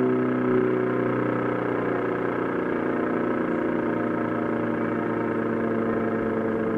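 L138 two-rotor electric siren sounding a loud, steady chord of several tones that waver and shift slightly after about a second. Its high-tone rotor turns the wrong way, so both rotors spin in the same direction.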